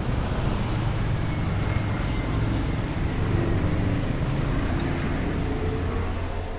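Steady low rumble of a car's engine and road noise heard from inside the moving vehicle.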